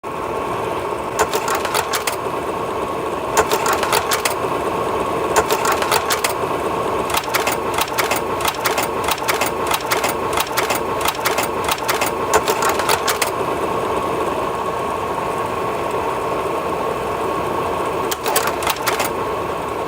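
A small machine running with a steady whir, with bursts of rapid clicking every second or two; the longest run of clicking comes in the middle.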